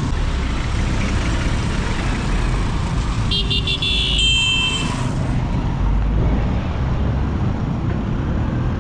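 Steady road traffic rumble. About three seconds in, a vehicle horn gives several quick toots, then one longer one.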